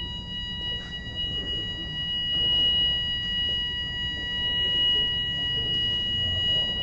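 Building fire alarm sounding continuously as one steady high-pitched tone, over a low background rumble. It is a false alarm, set off by the hotel sauna.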